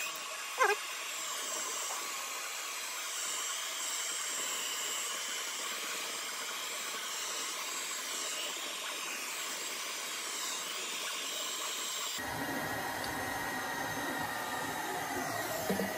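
Small handheld heat gun running steadily: a hiss of blown air with a high, slightly wavering motor whine. About three-quarters of the way through the sound turns fuller and lower.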